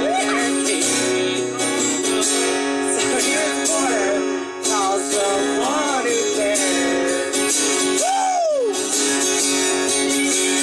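Live acoustic guitar strumming with a singing voice over it, the voice sliding and wavering between notes, with one long note that bends down about eight seconds in.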